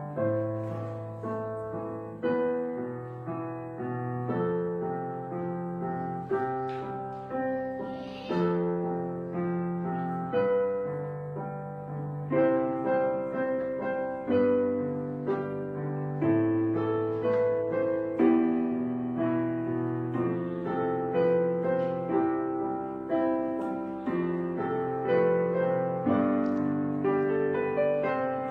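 Background piano music: a steady succession of struck notes and chords.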